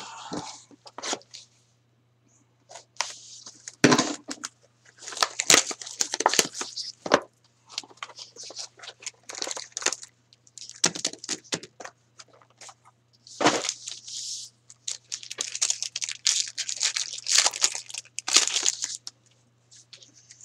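A cardboard trading card box being torn open and a card pack's wrapper ripped and crinkled, in a run of irregular tearing and rustling with a few sharp cracks.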